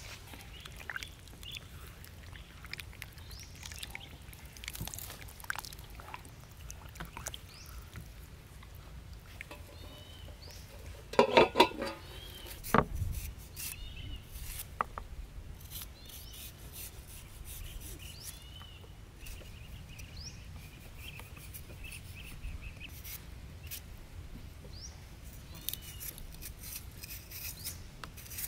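A cleaver scraping and paring the skin off fresh ginger root over a wooden chopping board: soft scrapes and light taps, with a cluster of louder knocks about eleven seconds in. Faint bird chirps in the background.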